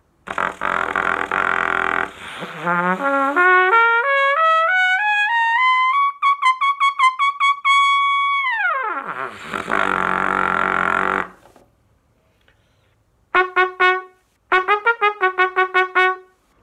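Trumpet playing an embouchure exercise. It starts with a low, buzzy note, then climbs step by step to a high held note and slides back down, followed by another low, buzzy note. After a short pause come two quick runs of short repeated notes on one pitch.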